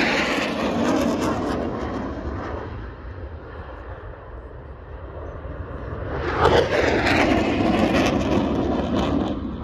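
Aircraft engines swelling and fading as planes fly past: loud at the start and dying away, then building again about six seconds in and fading near the end.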